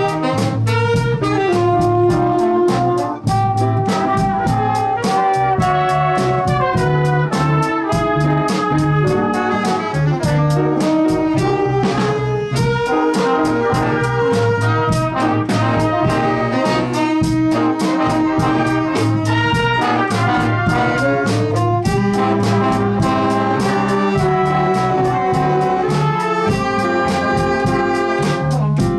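School jazz big band playing live: saxophones, trumpets and trombones play melody lines over a steady drum beat and a moving bass line.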